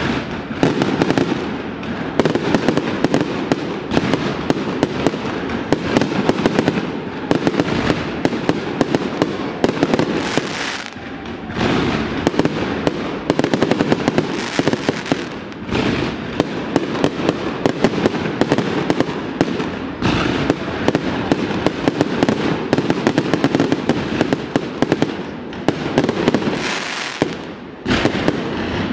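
Aerial fireworks display: a dense, continuous barrage of shell bursts and crackling reports, with short lulls about eleven seconds in and near the end.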